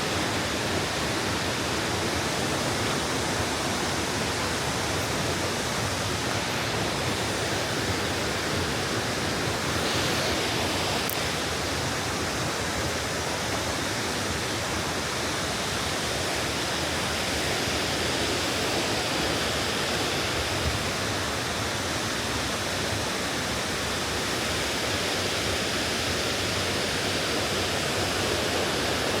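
Pongour Waterfall's falling water: a steady, unbroken rush of noise.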